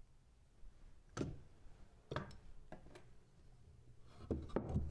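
A few light wooden knocks and taps as a yellow spirit level and a 2x4 sill with its riser blocks are handled on a plywood floor: single knocks about one and two seconds in, then a quick cluster of them near the end.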